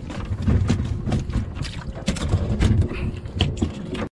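A freshly landed black sea bream flopping on a fibreglass boat deck, making a quick, irregular run of wet slaps and knocks.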